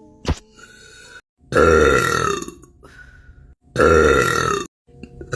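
A person burping: two long, loud belches, each about a second long and a second or so apart, after a short sharp click near the start.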